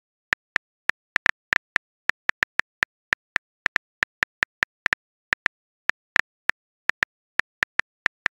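Phone on-screen keyboard key clicks as a text message is typed out: short, sharp ticks at an uneven pace of about four a second.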